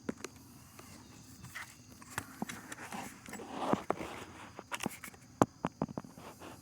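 Handling noise: scattered sharp clicks and knocks with a brief rustle about halfway through, as a light and camera are moved around the engine.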